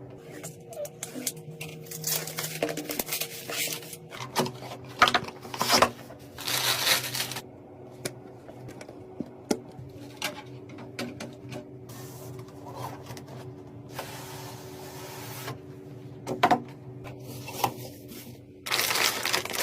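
Scattered clicks, knocks and rustling bursts from hands handling computer parts and packaging, over a steady hum.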